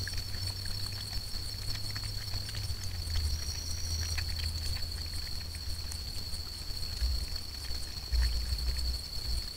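Crab-eating fox drinking water, with faint irregular lapping clicks. Under it runs a steady high-pitched whine, and low thumps come in near the end.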